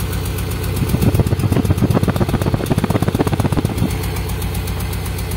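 Toyota Soluna's four-cylinder engine idling unevenly, heard at the tailpipe as a limping blub-blub exhaust pulse. About a second in the exhaust grows louder and choppier for around three seconds, then settles back. The misfire is one that the mechanic traces to a faulty spark plug lead on cylinder 2.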